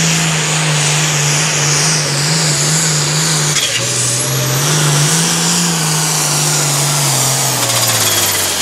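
International 1486 pulling tractor's turbocharged diesel engine running hard at full throttle while dragging the pulling sled. It drops in pitch about halfway through and falls further near the end as engine speed is pulled down, with a faint high whine rising above it.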